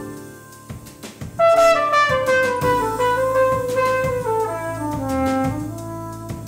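Flugelhorn playing a jazz melody line that comes in loudly about a second and a half in, backed by bass and a drum kit with cymbal strokes.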